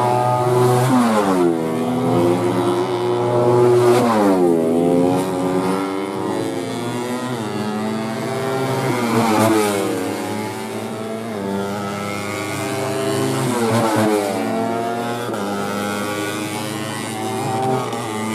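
Racing 150cc four-stroke underbone motorcycles running at high revs, several engines overlapping, their pitch sweeping down and back up several times as bikes brake and pass.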